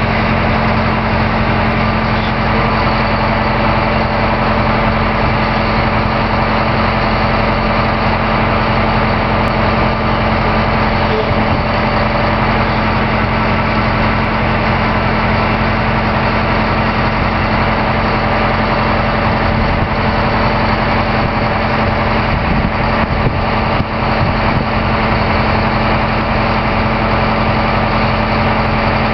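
Engine of a 1979 Cooper freestanding single-service rig running steadily while powering the hydraulic retraction of the top mast.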